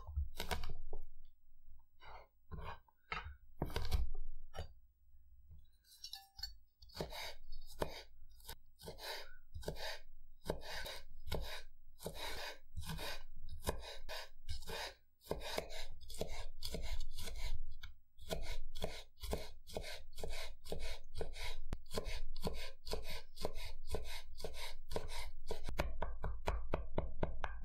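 Chef's knife chopping garlic cloves on a wooden cutting board: a few separate cuts at first, then from about six seconds in a steady run of quick knocks, about three a second, as the garlic is finely diced.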